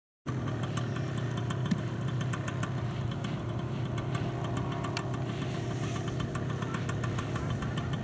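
Paramotor engine idling steadily, a constant low hum with a fast even ticking of the firing strokes.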